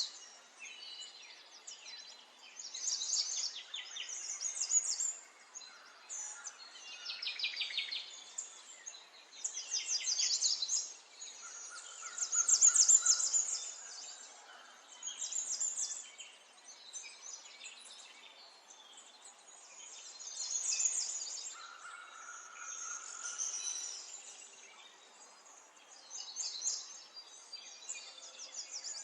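Small songbirds chirping and singing in quick, repeated trilling phrases, one after another. A steady, lower held note sounds twice, about a second or two each time.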